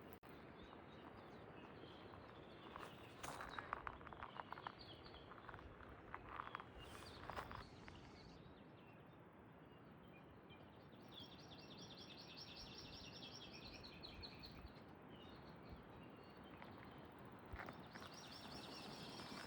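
Quiet outdoor ambience with a few faint clusters of footstep crunches in the first half, and a bird's rapid high trill, twice in the second half.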